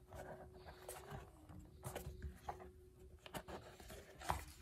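Faint handling of a small cardboard box: light taps and scrapes as its fitted lid is worked off, the loudest tap near the end, over a faint steady hum.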